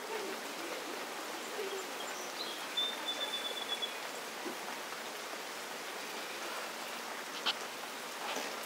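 Steady rain falling, an even hiss, with a faint high whistle lasting about a second and a half a few seconds in.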